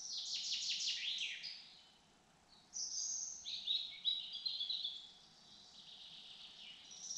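Songbirds singing in woodland: a quick run of high notes, each sliding downward, at the start and again at the end, and a different high twittering phrase about three seconds in.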